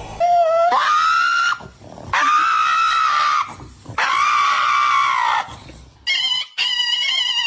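A dog screams three times in long, drawn-out cries, each rising at the start and falling away at the end, the kind of protest a dog puts up over having its nails handled. About six seconds in, a different, higher sound with several steady tones starts.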